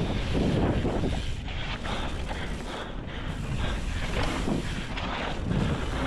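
Wind rushing over the camera microphone at speed, over the low rumble of a mountain bike's tyres rolling on a dirt trail. It swells and eases every second or so.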